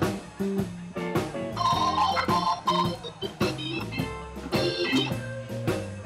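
Organ-led band music: a two-manual Hammond-style organ playing chords over a drum beat.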